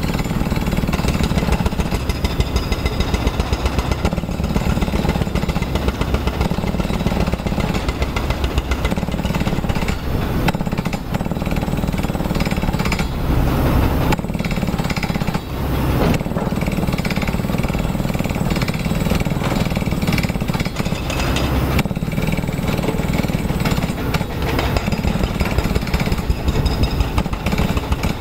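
Heavy construction machinery working: a Liebherr crawler excavator's diesel engine under load while it digs and loads soil, with a rapid, even pounding throughout.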